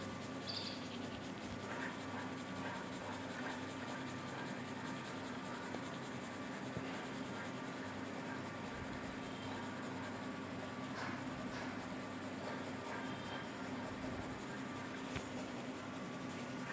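6B graphite pencil scratching faintly and steadily on drawing paper as it scribbles to shade a patch, over a low steady hum.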